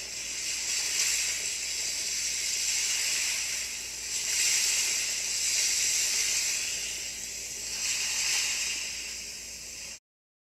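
Ocean surf: waves breaking and washing in, a hissing rush that swells and fades about every three to four seconds. It stops abruptly near the end.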